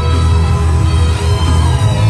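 Live gospel worship music played loud through a hall's sound system, with a heavy bass and sustained instrument tones.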